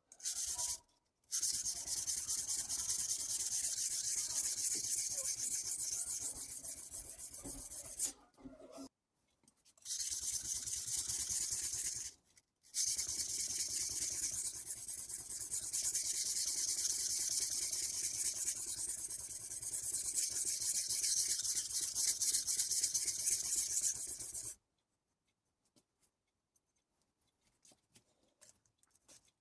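Steel knife blade scraped back and forth on a soaked whetstone: a rapid, hissing grind of many quick strokes in long runs. It breaks off briefly three times and stops about 25 seconds in.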